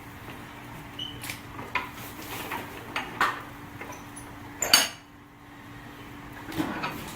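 Hand tools and debris being handled during sewer-line repair work: irregular metallic clinks and knocks, the loudest a little under five seconds in, over a faint steady hum.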